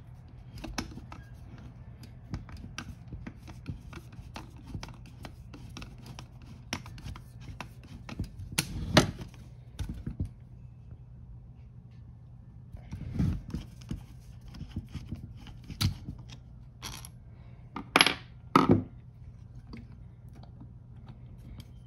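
Small metal parts and hand tools being handled while a carburetor is taken apart: scattered clicks and scrapes with a few sharper knocks, over a steady low hum.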